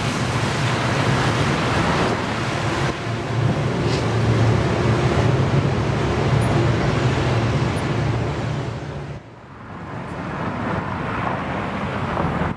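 Metrolink EMD F40PH diesel locomotive running under power, a steady low engine drone over the rumble of the train on the rails. About nine seconds in it drops away abruptly, leaving a quieter outdoor hum of distant traffic and rail noise.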